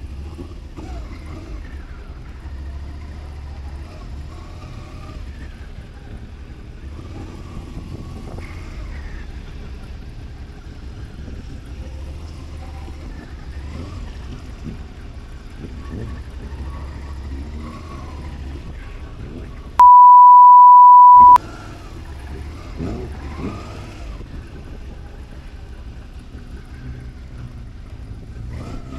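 A steady low rumble with faint voices in the background. About two-thirds of the way in, a loud, pure, single-pitched beep near 1 kHz cuts in for about a second and a half, like an editor's censor bleep.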